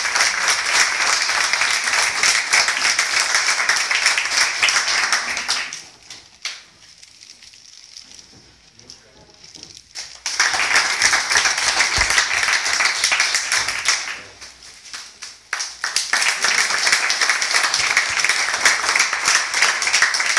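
An audience applauding in three spells: a dense patter of many hands clapping that stops about six seconds in, resumes around ten seconds, dips briefly around fifteen seconds, and picks up again.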